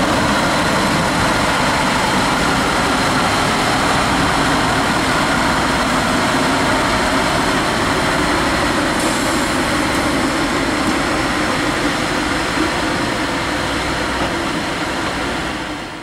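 Engine of a rail-mounted overhead-line maintenance vehicle running steadily as the vehicle rolls slowly along the track.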